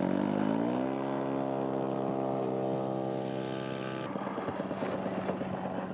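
Radio-controlled scale aerobatic model airplane's engine running at high throttle as it goes up. Its pitch rises over the first second, then holds steady. About four seconds in the steady tone breaks off into a rougher, noisier engine sound.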